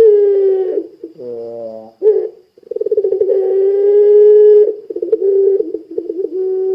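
Puter pelung dove calling with long, drawn-out coos, several held notes at a steady pitch, some opening with a stuttering start. A shorter, lower note drops in pitch about a second in.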